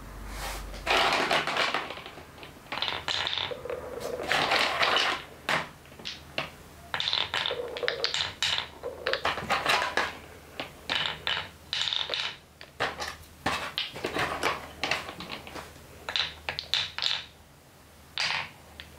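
Green wooden balls rolling along the grooved channels of a wooden block marble run and clacking against one another as they queue up, in repeated bursts of rolling rattle and sharp knocks.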